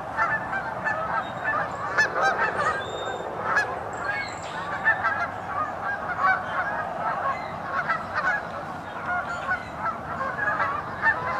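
A large flock of geese honking continuously, many calls overlapping into a dense, steady clamour.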